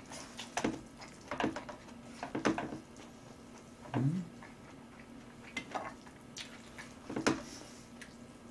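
Eating sounds from a noodle meal: scattered short clicks and smacks of chopsticks against a metal pan and of a mouth chewing Chapagetti noodles, with a short rising hum about four seconds in.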